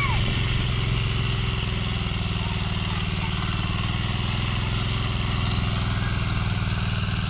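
Engine of an Ecomax 12 hp walk-behind rotary tiller running steadily at a low, even throb while its tines turn over grassy soil.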